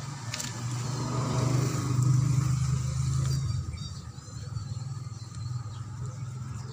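A motor vehicle engine passing by: a low, steady hum that swells to its loudest about two seconds in and then fades.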